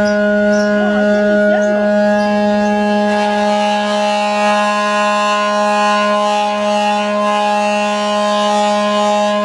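Thai hand-rubbed gong (khong) humming as its central boss is rubbed: one loud, steady low tone with a stack of ringing overtones above it that does not die away.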